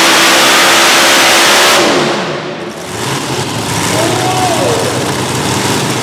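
Unlimited-class pulling tractor's bank of supercharged engines running flat out under load, then shut off about two seconds in, the sound falling away with a sliding-down pitch as the pull ends. A lower rumble and voices follow.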